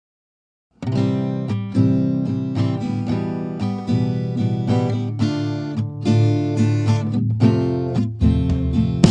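Background music starting suddenly about a second in: acoustic guitar, plucked notes and strums with a steady beat.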